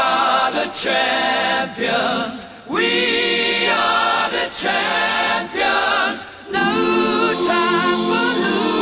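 Music with voices singing in harmony, likely a cappella: sustained notes with vibrato in short phrases that break about once a second.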